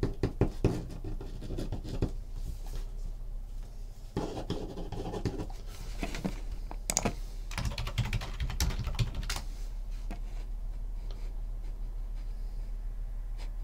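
Irregular clicks and taps of typing on a computer keyboard, in short runs, over a steady low hum.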